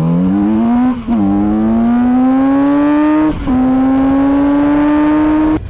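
Kawasaki Z900RS's inline-four engine under hard acceleration from a standing start, revs climbing in each gear. Two quick upshifts come about a second in and again about three and a half seconds in, each dropping the pitch before it climbs again. The sound cuts off abruptly just before the end.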